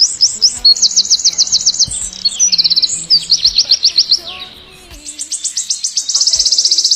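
A songbird singing: rapid series of high, downward-sweeping chirps and fast trills, pausing briefly about halfway through before a long, fast trill near the end.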